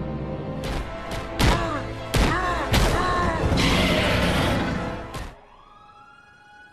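Film soundtrack of dramatic music hit by a run of heavy impacts and crashes, then a long noisy rush that cuts off suddenly about five seconds in, leaving a faint rising whoosh.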